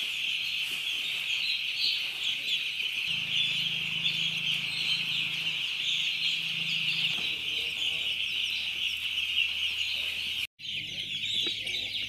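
A large flock of young chicks peeping continuously in a dense, high chorus, with a brief break about ten and a half seconds in.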